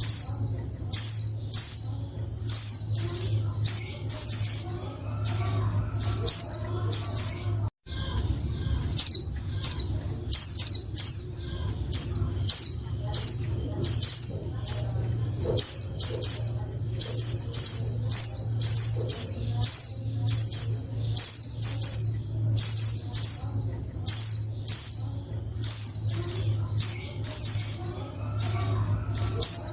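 Female white-eye (pleci) calling: short, high, falling chirps repeated in quick clusters, about one or two a second, with a brief break about eight seconds in. A low steady hum runs underneath.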